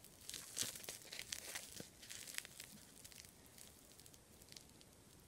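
Faint, irregular crinkling of a small plastic zip-lock bag of chunky glitter mix being handled and turned over, thinning out after about three seconds.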